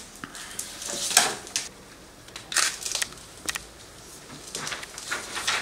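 Sheets of paper being handled and shuffled on a table, a series of short rustles and light knocks, the loudest about a second in.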